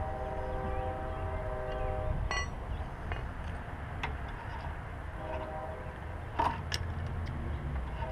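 A steady chord of several held tones, like a distant horn, that breaks off about two seconds in and returns briefly a little past five seconds, over a constant low rumble. A few sharp clicks or knocks sound in between.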